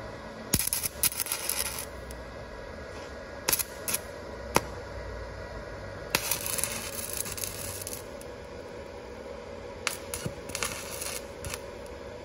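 Stick (arc) welder crackling and sputtering in short runs of a second or two, with a few sharp clicks of the arc striking between them, as weld is laid onto a bolt and nut held in a bench vise.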